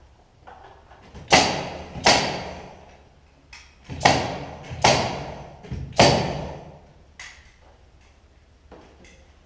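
Pneumatic framing nailer firing five times into the wall framing, each shot a sharp bang with a ringing echo off the bare cellar walls, with a few lighter knocks between.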